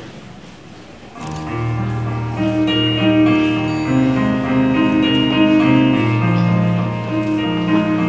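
Electric keyboard begins about a second in, playing an introduction of long held chords.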